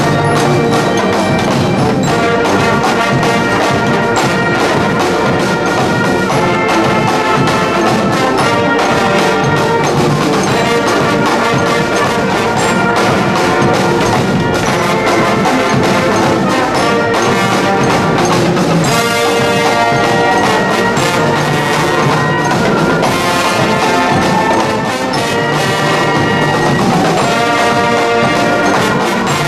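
Banda brass band playing a tune: sousaphones, trombones, trumpets and saxophones together, with snare drums.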